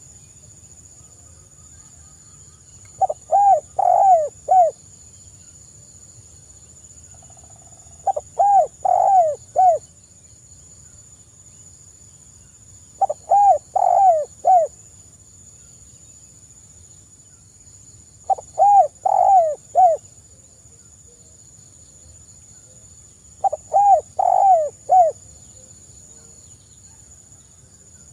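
Spotted dove cooing: a phrase of four or five throaty notes repeated about every five seconds, five times, with quiet between phrases.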